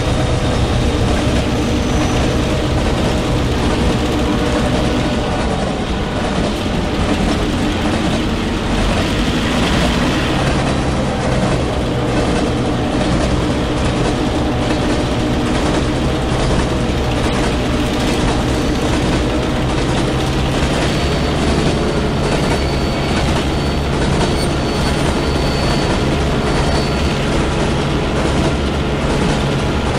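HO scale model diesel locomotive and cars running on track close by: a steady rolling clatter of wheels on rail with a low hum under it.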